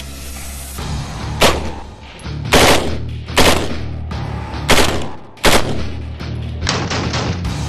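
HK416 5.56 mm rifle firing just after being buried in sand: single shots about a second apart, then a quicker string of shots near the end, each cycling without a stoppage. Background music plays underneath.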